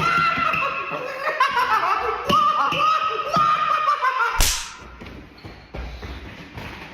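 A beatboxer's mouth-made imitation sounds: a wavering, bending pitched tone broken by clicks and pops, then about four and a half seconds in a sharp, loud hissing burst, followed by quieter sounds.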